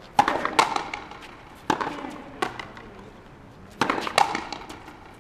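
Frontenis rally: a rubber ball struck with rackets and slapping against the frontón wall. The sharp cracks come singly and in pairs a fraction of a second apart, each with a short echo off the court walls.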